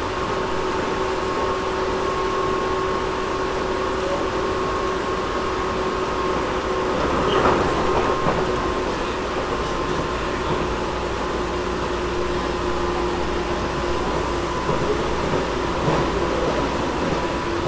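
Tobu 10000 series electric train running between stations, heard inside the motor car above its main controller: a steady running rumble with steady hum tones and the car's air conditioning going. About seven seconds in there is a brief louder clatter.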